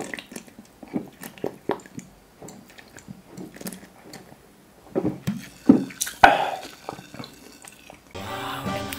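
A person drinking cola from a glass bottle: a run of close-up swallows and wet mouth clicks, with a cluster of louder gulps about five to six seconds in. Music comes in near the end.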